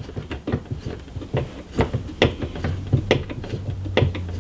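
Sharp clicks and knocks, about two a second, as a DeepCool AG400 CPU tower cooler is pressed and worked onto its spring-pin mounts on the motherboard. A low hum joins in for the last couple of seconds.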